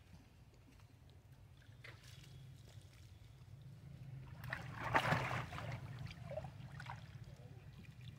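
Water splashing and sloshing as long-tailed macaques move and swim in a shallow pool, with the loudest splash about five seconds in, over a steady low hum.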